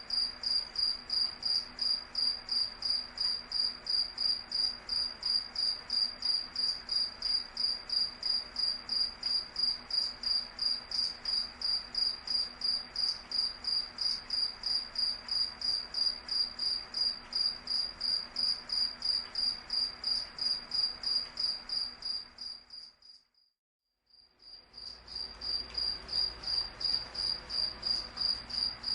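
A cricket chirping, a steady run of short, high chirps at about three a second. The chirping fades out to silence for about a second near the end and fades back in.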